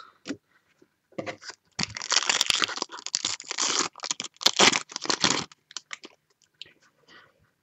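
A 2015 Topps Finest trading-card pack's wrapper being torn open and crinkled by hand: a run of crackling rips from about a second in until past five seconds, then a few faint rustles.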